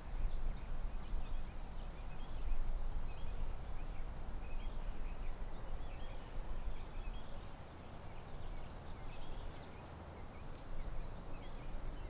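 Birds chirping and twittering in short high calls, over a steady low rumble.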